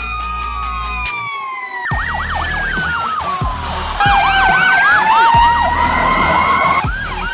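Fire engine sirens: a slow wail gliding up and down, then from about two seconds in a fast yelp warbling about four times a second over a second siren's slower wail.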